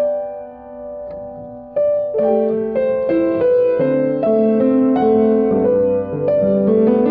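Solo piano playing a slow, gentle piece. A held chord dies away for the first couple of seconds, then fresh chords and a moving lower line come in.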